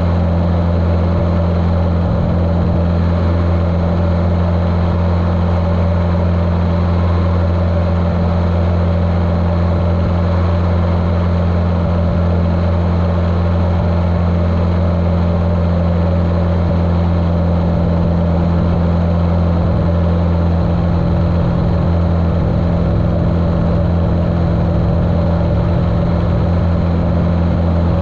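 The Continental O-200 four-cylinder engine of a 1973 Cessna 150L running steadily at constant power, a low even drone. It sounds muffled through the camera's waterproof case.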